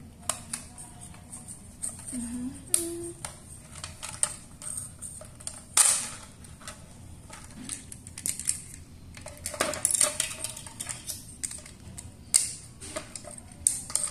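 Hard plastic Playmobil toy pieces clicking and knocking against each other and the tile floor as a police speedboat is handled and fitted onto its trailer, with scattered sharp clicks and a few louder knocks.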